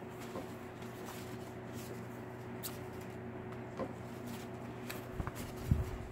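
Paper pages of a notebook insert being handled, with faint scattered rustles and light taps and a soft thump near the end, over a steady low hum.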